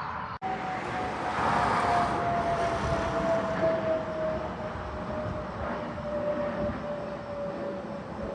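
A passing engine: a steady hum that slowly falls in pitch, over a rushing noise that is loudest in the first few seconds.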